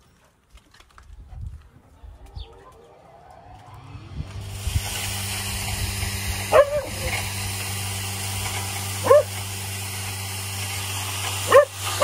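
An electric grain crusher for cattle feed spins up about four seconds in and then runs steadily with a mains hum. A dog barks three times over it, short yelping barks a couple of seconds apart, louder than the machine.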